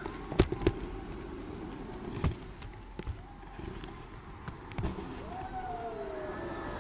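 Fireworks going off: a scattered series of sharp bangs, the loudest about half a second in, over a steady low background rumble.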